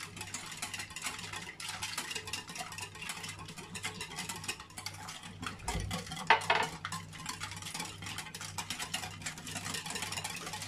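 Hand wire whisk beating an egg, sugar and oil cake batter in a glass bowl: fast, continuous clicking and scraping of the wires against the glass, with a few louder clinks about six seconds in.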